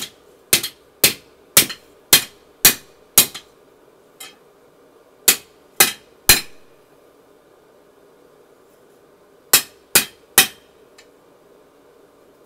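Hand hammer striking red-hot steel on an anvil: a run of seven sharp blows about two a second, then two short groups of three blows.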